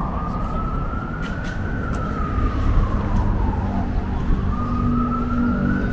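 Emergency vehicle siren on a slow wail, gliding up and down, with each full rise and fall taking about four to five seconds, over low street traffic rumble. A low steady drone joins near the end.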